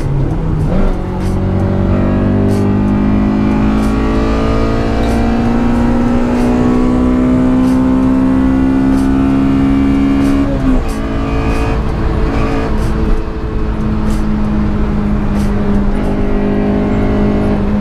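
Honda Civic's B16A1 1.6-litre DOHC VTEC four-cylinder heard from inside the cabin, pulling through a gear with its pitch slowly rising. About eleven seconds in the pitch drops sharply at an upshift, and the engine runs on at a fairly steady pitch.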